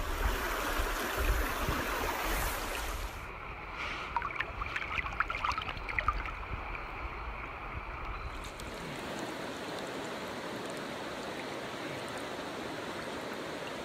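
Rushing stream water, with wind rumbling on the microphone for the first few seconds and small splashes and clicks about four to six seconds in while a trout is handled in the shallows.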